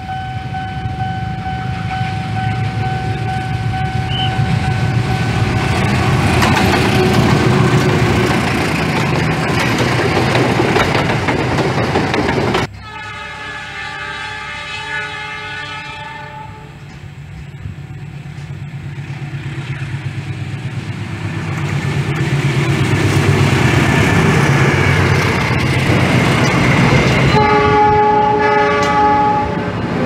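A CC 206 diesel-electric locomotive sounding its multi-tone air horn, a loud chord held about three seconds. Another CC 206 horn sounds near the end for about two seconds. Both come between stretches of a train rumbling past on the rails, which builds up as it nears.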